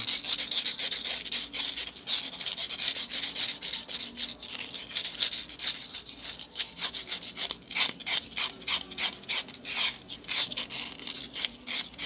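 Fine sandpaper rubbed in quick repeated strokes along the metal shaft of a box-fan motor rotor, a steady scratchy hiss. It is polishing the blackened shaft clean.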